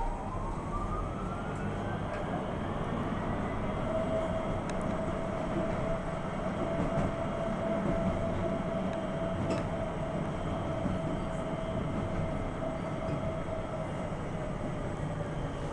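Heard from inside a moving tram: a rising whine as the tram accelerates in the first few seconds, levelling off into a steady tone while it runs along at speed, over a constant rumble of wheels on the rails.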